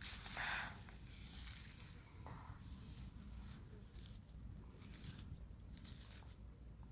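Leopard tortoise biting and tearing at its food: a series of irregular short bites, the loudest right at the start.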